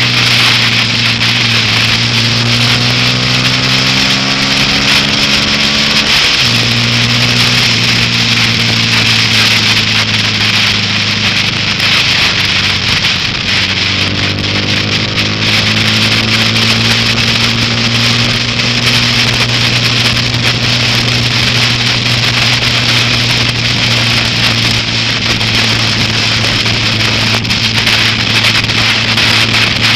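Honda Grom MSX125's small single-cylinder four-stroke engine running steadily at speed, its note shifting once about six seconds in, over a steady rushing hiss of wind and rain on the move.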